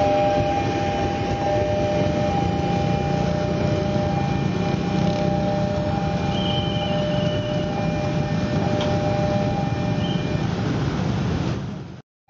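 Level-crossing warning alarm sounding a steady two-tone note over the rumble of a KRL commuter electric train and of motorbikes idling at the lowered barrier. It all fades out near the end.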